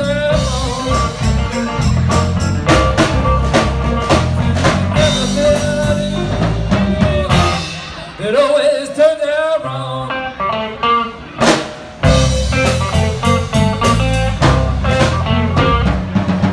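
Live blues band playing with electric guitars, bass guitar, drum kit and harmonica. About eight seconds in, the bass and drums drop out for a couple of seconds, leaving a lone bending lead line, before the full band comes back in.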